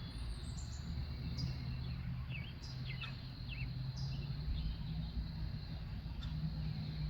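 Songbirds calling: short, high chirps that fall in pitch, repeating about every second and a half, with a few lower chirps in between, over a steady low hum.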